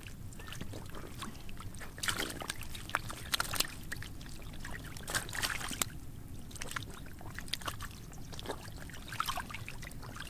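Shallow muddy water splashing and trickling in irregular bursts as hands scoop stranded fish from puddles and the fish thrash in the water.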